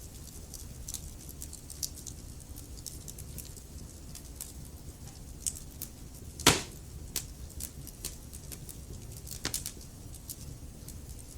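Wood fire crackling: scattered small snaps and ticks over a low steady rumble of the flames, with one loud pop a little past halfway and a short cluster of snaps near the end.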